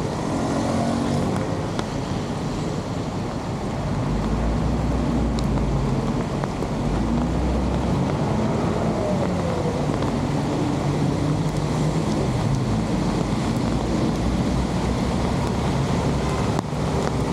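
Muddy rainwater rushing steadily over a concrete edge into a flooded drain channel, with heavy rain falling on the water. A deeper rumble swells between about four and eight seconds in.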